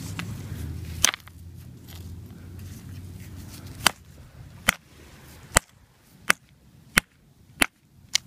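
Crusty iron find knocked hard against a beach stone to break off its encrustation: one sharp knock about a second in, then a run of seven evenly spaced knocks from about four seconds in.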